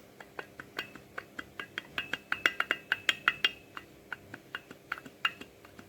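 Rapid, irregular metallic clicking and clinking, about five ticks a second, busiest in the middle, over a faint steady hum: the noise of a badly damaged water pump.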